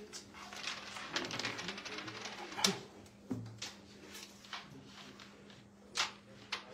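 Scattered sharp clicks and taps of a carrom striker and coins on the wooden carrom board, the loudest about two and a half seconds in.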